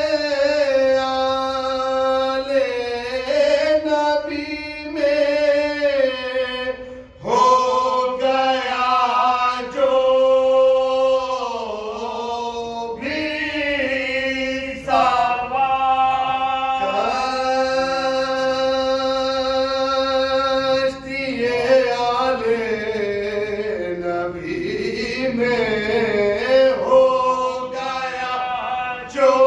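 Unaccompanied devotional chant: a man singing into a microphone with long held, wavering notes, and two other men and a boy singing along with him. The voices break off briefly about seven seconds in, then carry on.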